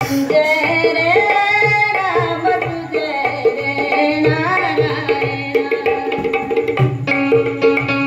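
Marathi devotional song (bhajan) to Narayana: a singer's voice gliding between notes over a steady tabla rhythm.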